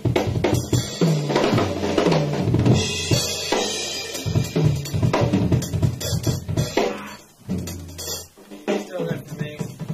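Acoustic drum kit played solo in a studio: fast runs of strikes across snare, toms and bass drum, with a cymbal wash about three seconds in and a brief thinning of the playing near the end.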